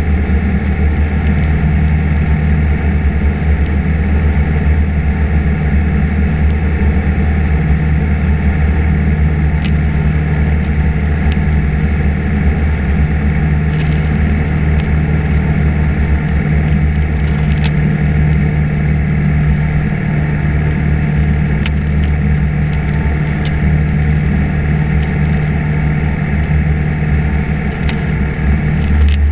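Piper PA-28 Cherokee's piston engine and propeller droning steadily in cruise, heard inside the cockpit cabin, with a few faint clicks over it.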